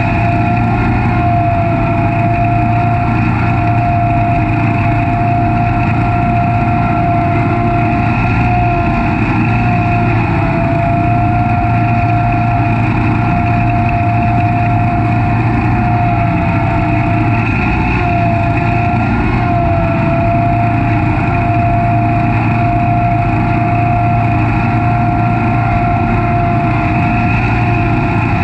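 Snapper Pro SS100 36-inch stand-on mower running steadily while mowing grass. The engine's hum carries a steady high whine that wavers slightly in pitch.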